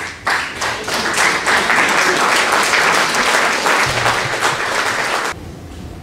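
Theatre audience applauding: a few separate claps that thicken into steady applause, which cuts off suddenly about five seconds in.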